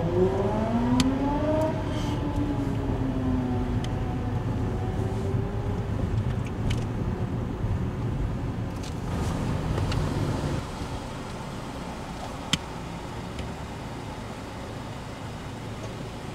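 Car engine and road noise heard from inside a moving car, the engine note rising as it accelerates in the first few seconds, then holding steady. About two-thirds of the way through the rumble drops away to a quieter steady background, with one sharp click a little later.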